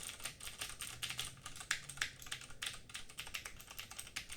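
Typing on a Cooler Master QuickFire TK mechanical keyboard with Cherry MX Blue switches and double-shot ABS keycaps. It is a quick, uneven run of clicky keystrokes.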